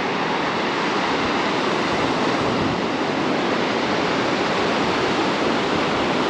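Calm ocean surf washing onto the beach: a steady rush of small waves, building slightly in the first second or two.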